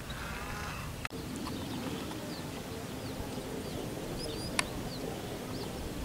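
Outdoor ambience: a short bleating animal call at the start, then, after a brief cut, many short high chirps of small birds over a low steady hum. A single sharp click comes about four and a half seconds in.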